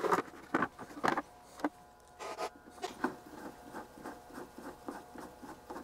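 Clicks and knocks of the Fluke 8000A multimeter's case being handled and seated on its chassis, then faint, fairly regular ticking from about three seconds in as a screwdriver turns the screw in the back of the case.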